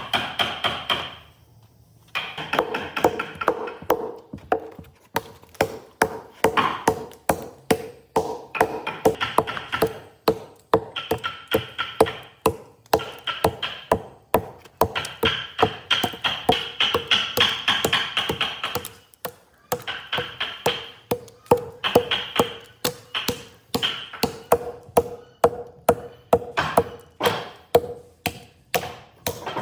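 Rapid, steady hammering on wood, about three to four blows a second with a ringing tone under the strokes, pausing briefly near the start and again just past halfway.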